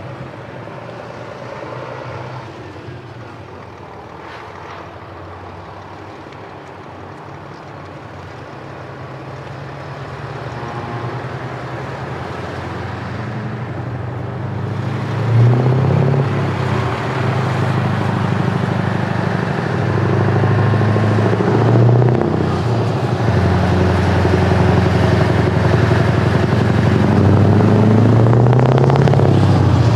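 Scania truck's diesel engine approaching and passing close, growing steadily louder over the second half. Its engine note rises and falls a few times as it pulls through.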